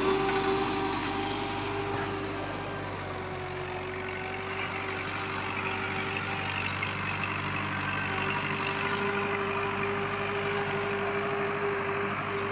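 New Holland Dabang tractor's diesel engine running steadily under load as it pulls a laser land leveler through dry soil, with a high whine that drops out for a few seconds in the middle.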